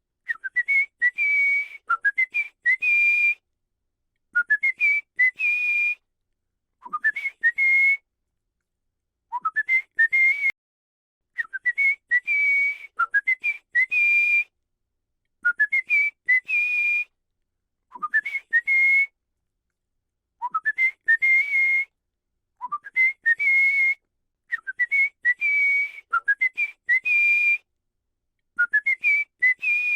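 A person whistling a short tune: a few quick rising notes ending on a held note, the phrase repeated over and over with short pauses between.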